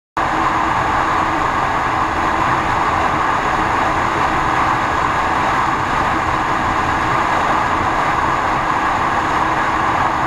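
Steady rush of wind on the microphone with the TVS Apache RTR 160 4V's single-cylinder engine held at full throttle near its top speed of about 135 km/h. It cuts in suddenly just after the start and holds even throughout.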